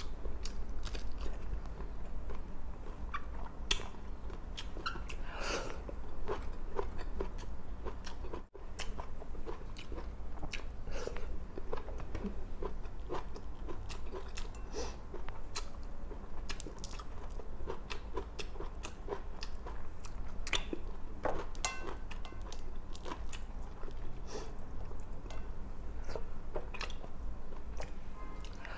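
Close-up eating sounds: chewing and biting into a meal of grilled milkfish, rice and raw vegetable salad, with many short wet clicks and crunches at an irregular pace over a steady low hum. The sound drops out for a moment about eight and a half seconds in.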